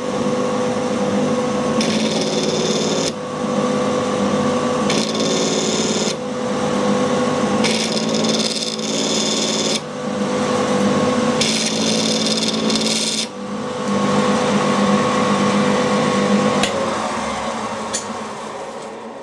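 Mini mill's spindle motor running with a steady hum, broken by four bursts of rasping noise as swarf is brushed off the workpiece; the motor dies away near the end.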